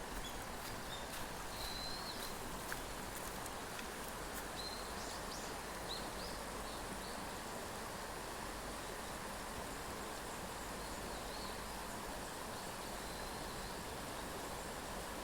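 Steady outdoor background hiss with a few short, high bird chirps scattered through it, most of them in the first half and a couple around the two-thirds mark.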